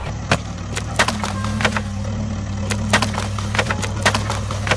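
Miniature clay bricks clicking and clattering against each other and a plastic toy track as a toy excavator bucket scoops through them: a run of sharp, irregular clicks over a steady low hum.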